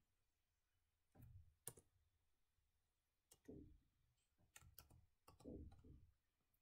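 Faint, scattered keystrokes on a computer keyboard, a few short clicks at a time in small irregular groups.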